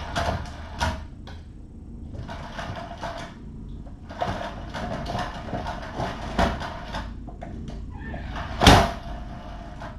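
Knocks, clicks and rustling, like things being handled and set down, with one loud thump near the end.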